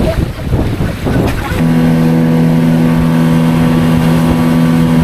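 Rough noise for the first second and a half, then a loud, steady motor drone that starts and holds at one pitch.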